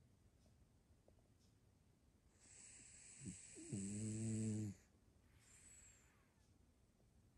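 A pug snoring: a hissing breath in from about two and a half seconds, then one low buzzing snore of about a second near four seconds in, followed by a softer breath out.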